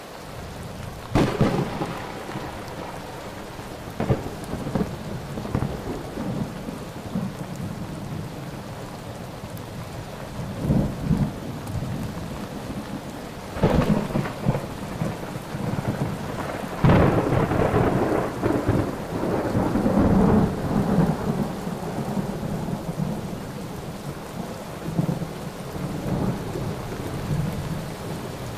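Heavy rain falling steadily during a thunderstorm, broken by several sudden loud thunderclaps. The loudest comes about seventeen seconds in and rumbles on for a few seconds.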